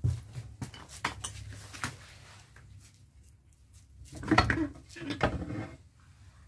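Metal tools and gearbox parts clinking and knocking as they are handled and set down, with a louder burst of metallic clatter about four seconds in.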